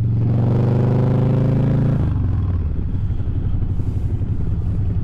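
Harley-Davidson V-twin engine under way, heard through a microphone inside the rider's helmet. Its note climbs slightly, then about two seconds in it breaks into a lower, rougher beat.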